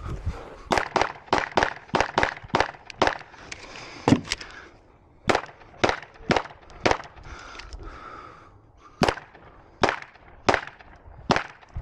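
9 mm pistol fired rapidly in a USPSA stage: about two dozen sharp shots in quick pairs and runs, a quarter second or so apart. There are two longer pauses, near the middle and about two thirds through, typical of moving between positions or reloading.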